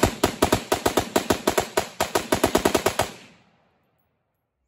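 Suppressed 5.56 AR-15 short-barrelled rifle with an Adams Arms P2 7.5-inch piston upper, a SilencerCo Saker K suppressor and a Franklin Armory AR-C1 binary trigger, firing a fast, even string of shots at about eight a second. The binary trigger fires once on the pull and once on the release. The string stops about three seconds in and the report fades away.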